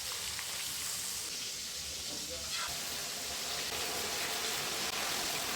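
Food frying in hot oil, a steady sizzle.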